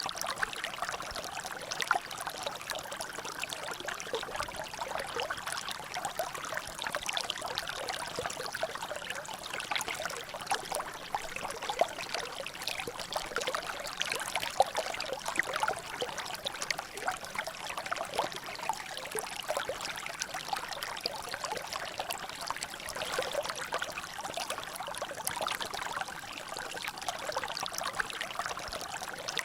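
Water trickling and splashing steadily in a natural drainage, a constant stream of many small splashes and drips with no break.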